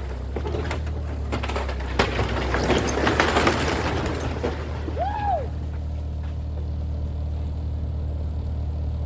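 Skid steer engine running steadily while wood and debris of an old house crack and crash down, heaviest from about two to four seconds in, with a brief rising-and-falling squeal about five seconds in.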